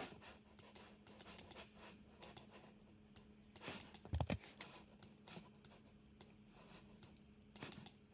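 Faint, irregular clicks of a computer mouse and keyboard over a steady low hum, with one low thump about four seconds in.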